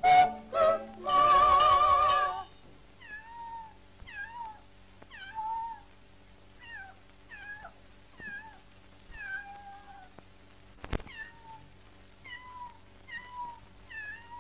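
A kitten mewing over and over in a cartoon soundtrack: some fifteen short, high mews, each bending in pitch, coming about one to two a second. They follow the end of a sung musical phrase in the first two seconds. A faint steady hum runs underneath, and there is a single sharp click about two-thirds of the way through.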